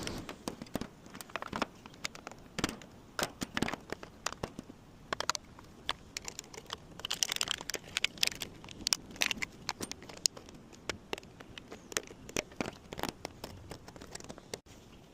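Irregular clicks, taps and rustling of hand work on the electrical box, like tools, screws and wires being handled, with a short scraping rustle about halfway through.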